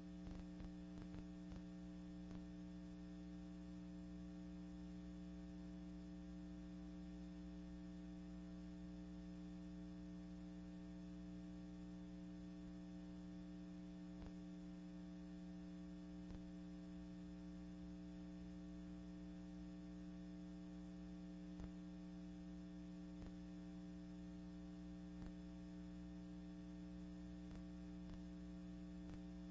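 Steady electrical mains hum with faint hiss and a few faint clicks, on an otherwise empty soundtrack.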